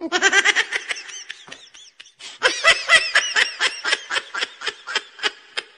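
High-pitched laughter, quick repeated 'ha-ha' bursts of giggling that break off briefly about two seconds in and then go on.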